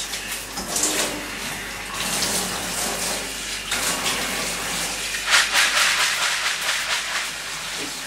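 Tap water running and splashing into a plastic bucket of soaked seed in a stainless steel sink as the seed is rinsed. The splashing swells louder briefly just under a second in and again about five seconds in.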